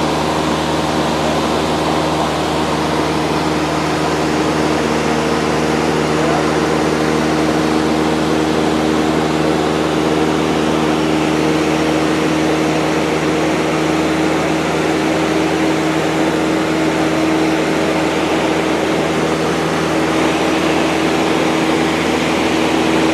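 Cessna 152's four-cylinder Lycoming O-235 engine and propeller running steadily in level flight, heard inside the cockpit as a constant hum with a hiss over it.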